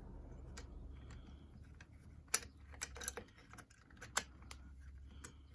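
Light metallic clicks and scrapes of a homemade tension tool being worked into the keyway of a 3-lever mortise lock to seat it straight. The clicks are irregular, with the sharpest ones about two seconds and about four seconds in.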